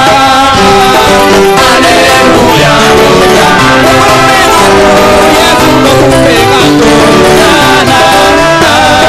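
Male vocal group singing a gospel song together in harmony into microphones, loud and amplified over a live band with drums.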